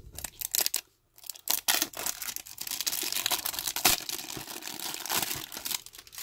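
Thin clear plastic shrink-wrap being pulled off a small cardboard blind box and crumpled in the hand. A few sharp crackles come first, then after a brief pause a dense, continuous crinkling from about a second and a half in.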